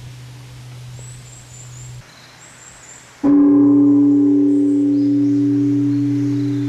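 Large bonshō temple bell of Nanzen-ji struck once about three seconds in: a sudden stroke, then a deep, clear tone with several overtones that rings on and slowly fades (the oshi reverberation). Before the stroke, the low hum of the previous strike is still dying away.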